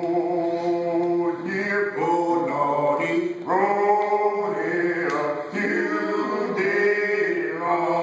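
A group of men singing a menhaden fishermen's work song (shanty) a cappella, chanting in long held notes with no instruments.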